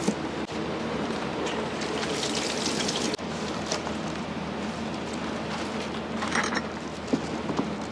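Restaurant kitchen working noise: a steady background din with a few sharp clinks, and a brief hiss about two seconds in and again near the end.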